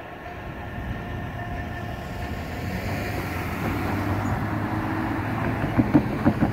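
A car driving across a two-track railroad crossing, its engine and tyres growing louder as it comes close. Near the end its wheels bump over the rails in a quick run of four or five thumps.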